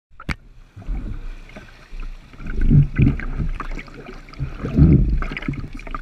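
Lake water lapping and sloshing against a wakeboard and a half-submerged action camera, in uneven surges, the loudest about three and five seconds in. A sharp click comes just after the start.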